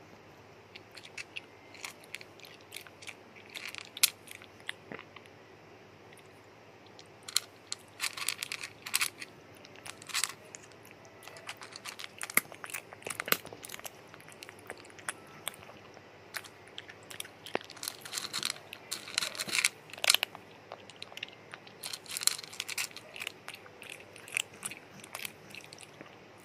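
A rat chewing and gnawing a slice of raw pumpkin: short irregular crunches and bites that come in clusters, with the loudest bursts around a third of the way in and again about three quarters through.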